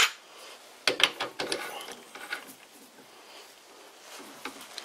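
Metal-on-metal clicks and knocks as a steel workpiece is handled in a lathe chuck and the chuck is turned by hand. There is a quick run of sharp clicks about a second in, then fainter scattered ticks.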